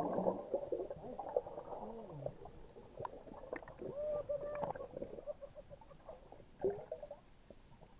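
Muffled underwater water noise heard through a submerged camera: sloshing and gurgling that is loudest early on and fades, with scattered clicks. About four seconds in, air bubbles stream past the lens with brief ringing gurgles.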